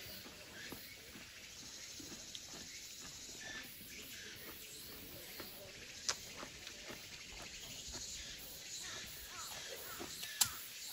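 Insects chirring, a faint, steady, high-pitched buzz, broken by two sharp clicks, one about six seconds in and a louder one near the end.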